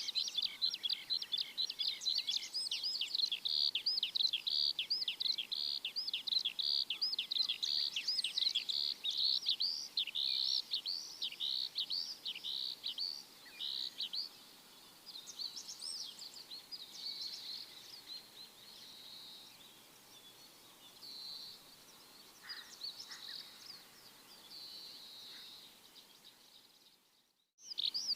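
Small birds chirping in a rapid, continuous run of high chirps, thinning to softer, sparser calls about halfway through. The sound drops out briefly just before the end, then the chirping starts again.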